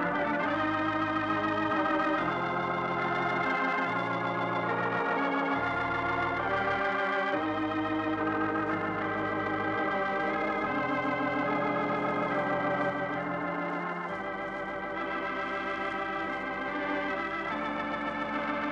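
Organ music playing the programme's closing theme: held chords with a wavering vibrato, changing every second or two and easing slightly in volume partway through.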